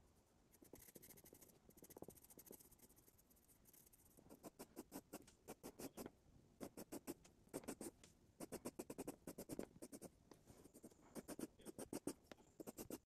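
Faint scratch of an 8B graphite pencil on drawing paper: softer shading strokes at first, then quick short hatching strokes several times a second, in bursts, as hair is drawn in.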